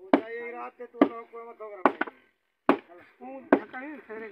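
Five sharp hammer blows on the metal gear and shaft of a water-lift machine, a little under one a second, as the gear is driven onto its shaft.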